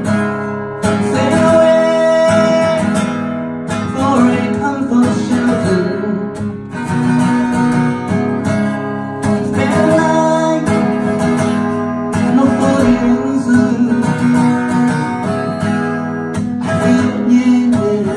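Live acoustic guitar strummed steadily, with a voice singing over it.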